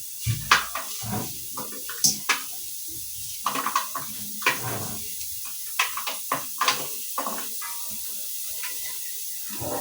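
Kitchen handling noises: a string of irregular knocks and clinks from utensils, pots and dishes being moved about, some with a short ring.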